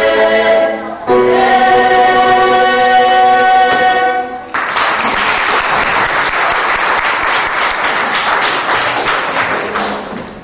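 Children's choir singing a Georgian polyphonic folk song in close harmony, breaking briefly about a second in and then holding a final chord, which stops about four and a half seconds in. Audience applause follows at once and fades toward the end.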